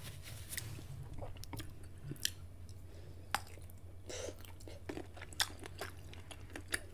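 Close-miked chewing and wet mouth sounds of someone eating sausage and noodles, with a few sharp, separate clicks about a second apart, over a low steady hum.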